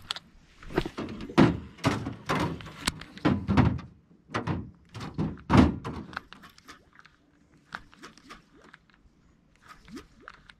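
A run of irregular dull knocks and thumps, dense for about the first six seconds and then sparser and fainter.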